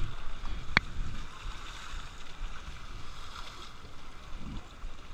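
Water sloshing and splashing in a shallow river, with wind buffeting the microphone. A single short, sharp click rings out just under a second in.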